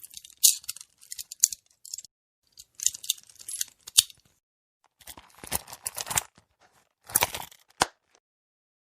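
Metal handcuffs being handled: a run of short clicking, rattling bursts of the cuffs and their chain, with a few fuller, heavier clanks in the second half, stopping about eight seconds in.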